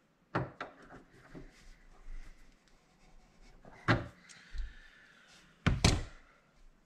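Scattered clicks and knocks of metal parts being handled inside a metal fuse box as it is taken apart by hand. The loudest knock comes about four seconds in, and two more come close together near the end.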